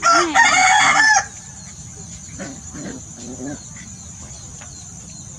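A rooster crows once, loudly, for about a second at the start. A steady high insect trill runs underneath throughout.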